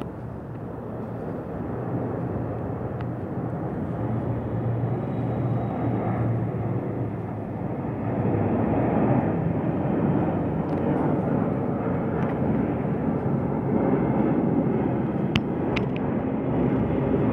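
Boeing 777 twin-engine jet airliner passing overhead: a continuous jet roar that grows louder about eight seconds in.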